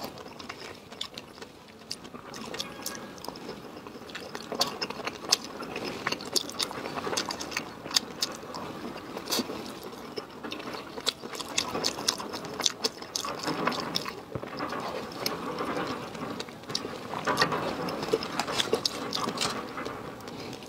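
Close-up eating sounds: wet chewing and slurping of sauced enoki mushrooms and fruit, with many short sharp clicks throughout from the metal fork and the mouth.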